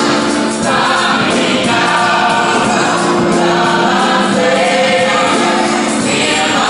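Mixed gospel choir singing loudly and continuously.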